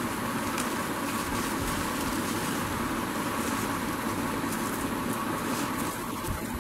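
Bubble wrap and a plastic bag crinkling and rustling as they are pulled off a boxed optical drive by gloved hands, with faint scattered crackles. Under it is a steady background hum.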